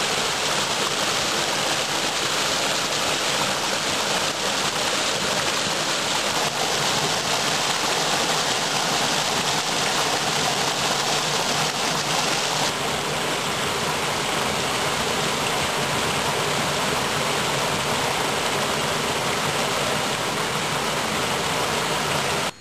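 Steady rush of a small cascade and rocky stream pouring over and around boulders. The hiss eases slightly about halfway through.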